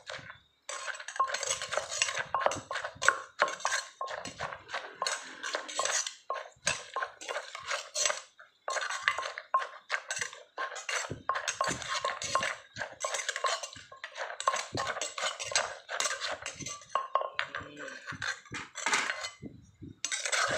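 Wooden pestle pounding and a metal spoon scraping and turning a wet noodle salad in a clay mortar: a fast, continuous run of knocks and clatter with a few brief pauses.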